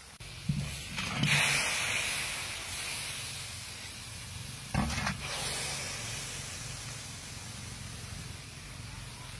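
Hot wok of fish curry hissing and steaming. A loud hiss starts sharply about a second in and slowly dies away, and a second sharp burst of hiss comes about five seconds in.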